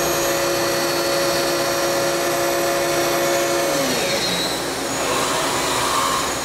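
A Milltronics VM-17 CNC vertical machining centre running with a steady mechanical noise and a motor whine. About four seconds in, the whine slides down in pitch and fades as the motor spins down, while the steady noise carries on.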